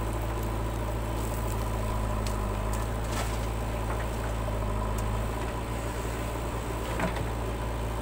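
JCB 3DX backhoe loader's diesel engine running steadily while its backhoe swings a bucket of soil over and dumps it, with a couple of faint knocks about three and seven seconds in.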